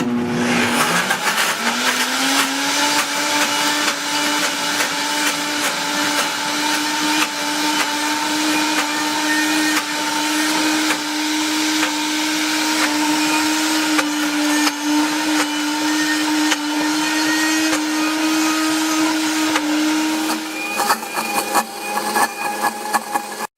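Oster Versa high-performance blender running on a lower speed, churning thick raw sunflower seed butter with a little coconut oil added. The motor hum rises to speed over the first couple of seconds, runs steadily, changes near the end and then stops abruptly.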